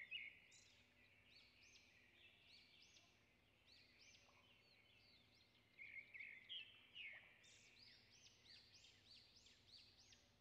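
Faint birdsong: a bird repeating short, high, arching chirps, a little louder about six to seven seconds in.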